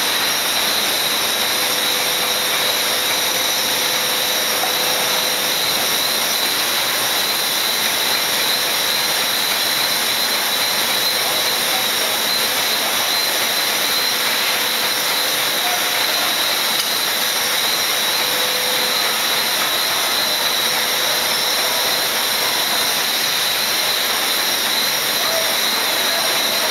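Billet continuous casting machine running: a steady loud hiss and drone of the casting line, with a steady high-pitched tone through it and no breaks or impacts.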